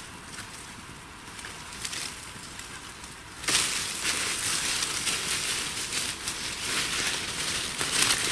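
Dry fallen leaves rustling and crunching under footsteps on a leaf-covered slope, starting suddenly about three and a half seconds in and then running on as a dense crackle; before that only a few faint crackles.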